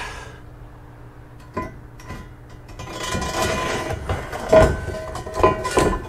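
Steel box-section subframe connector being slid up inside a first-gen Mustang's chassis rail: a single knock, then metal scraping against metal with a ringing tone from about three seconds in, and several sharp clanks near the end.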